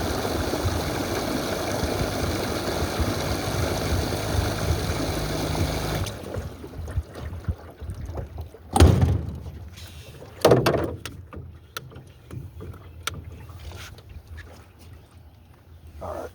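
A jon boat's motor running steadily, then cut off abruptly about six seconds in. After that come a few hollow knocks and thuds on the boat, two of them loud, and small clicks of gear being handled.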